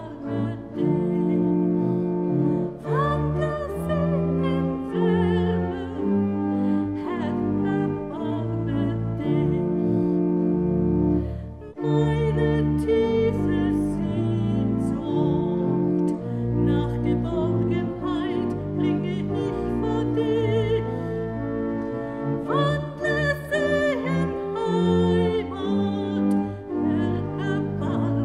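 A solo voice with vibrato sings two verses of a German Kyrie hymn to instrumental accompaniment, in held, slow phrases with a short break between verses.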